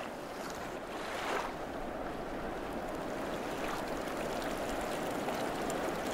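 River water running steadily over a shallow, stony bed, with a brief louder rush about a second in.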